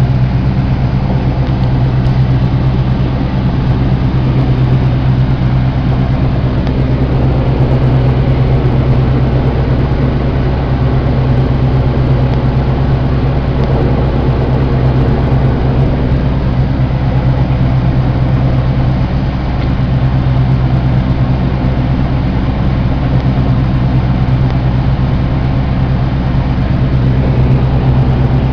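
New Holland TR70 twin-rotor combine running steadily under load, its diesel engine and threshing rotor giving a constant low hum while it harvests wet, hard-shelling corn at a faster-than-normal rotor speed.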